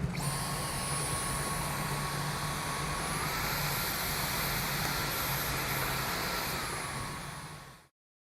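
Dyson cordless vacuum's motor running with a steady rushing whine over a low hum. The whine steps up in pitch about three seconds in and drops back about three seconds later, then fades out.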